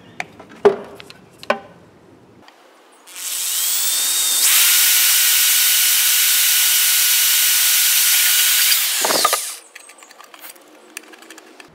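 Corded electric drill with a 7/32-inch twist bit speeding up, running steadily for about six seconds while drilling a hole through a clear plastic container, then winding down with a falling pitch. A few short knocks and clicks come first.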